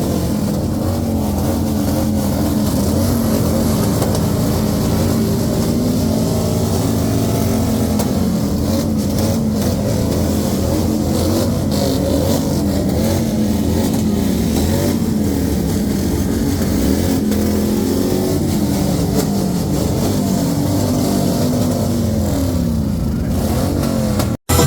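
Several vehicle engines revving together, their pitch rising and falling over and over in a loud, continuous din.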